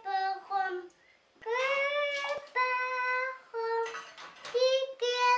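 A young girl singing in a high voice: a short phrase, a brief pause about a second in, then a run of steady held notes.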